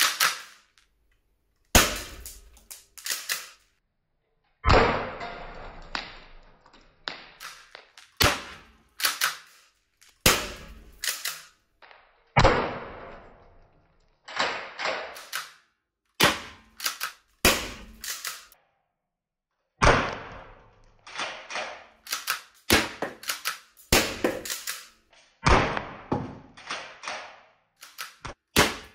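Repeated sharp shots from a T4E HDX 68 CO2-powered launcher, fired singly and in quick pairs and triples, mixed with hits on the target. A few carry a longer ringing tail. The bursts are broken up by abrupt cuts to silence.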